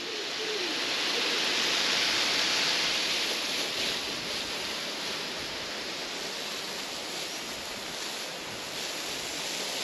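Garden hose spraying a fine mist of water onto plants: a steady hiss that eases off slightly after about three seconds.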